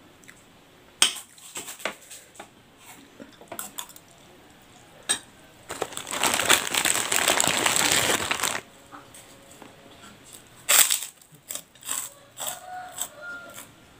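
Eating sounds: a metal spoon clinking and scraping on a ceramic plate of rice in scattered sharp clicks, with a loud stretch of crunching lasting about three seconds in the middle.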